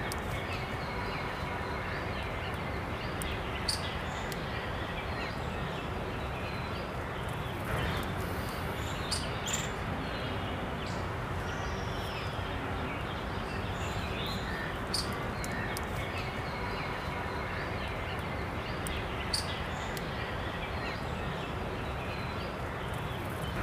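Steady outdoor nature ambience: an even hiss with faint, scattered bird chirps and a few sharp high ticks.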